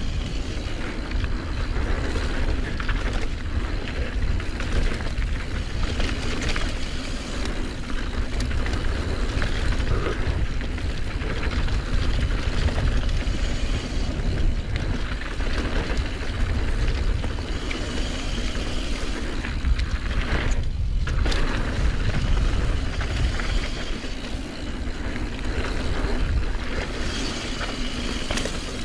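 Wind rumbling on an action camera's microphone at speed, over the continuous rolling, rattling noise of a mountain bike's tyres, chain and frame descending a dirt flow trail. The rattle drops out briefly about two-thirds of the way through.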